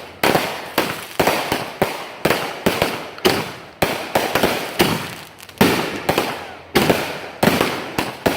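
Consumer fireworks going off in quick succession: sharp bangs about three a second, each trailing off into a short crackling decay.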